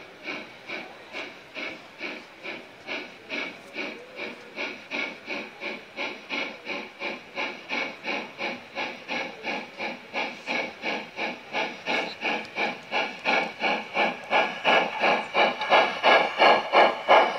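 Gauge 1 (1:32) model of a German class 56 (BR 56) steam locomotive chuffing in a steady rhythm of about two to three beats a second, growing louder as it approaches.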